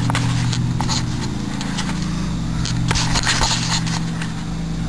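Scrapes and knocks of a handheld camera being handled and set down on deck stairs, with a cluster of rubbing and knocking about three seconds in. A steady low hum runs underneath.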